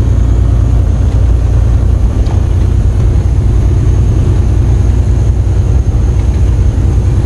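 Semi truck's diesel engine and road noise heard inside the cab at highway speed: a loud, steady low rumble.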